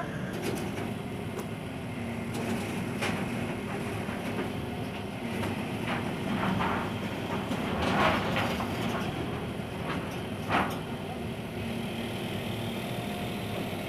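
Heavy diesel engine running steadily, with several short knocks over it, the loudest about eight seconds in.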